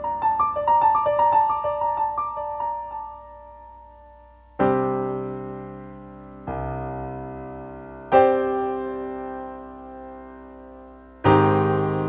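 Solo piano music: a quick run of high notes, then slow chords, each struck and left to ring and fade.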